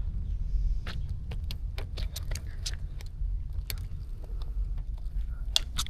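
A string of sharp, irregular clicks and clinks, about a dozen, over a steady low rumble.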